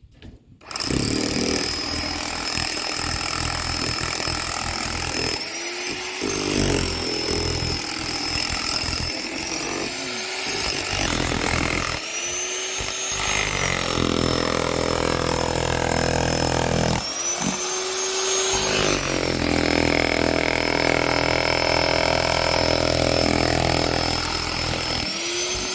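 High-speed electric power cutter cutting channels into a wall for conduit pipes. It starts about a second in and runs with a steady high whine, and its pitch rises briefly about four times as the blade comes off the cut and then drops back under load.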